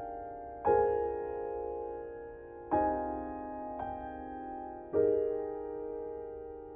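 Slow, soft background piano music: chords struck about every two seconds and left to ring and fade.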